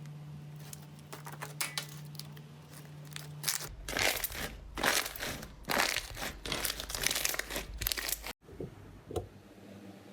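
Slime being worked by hand, making crackling, crinkling pops that grow much busier and louder about four seconds in and cut off abruptly a little past eight seconds.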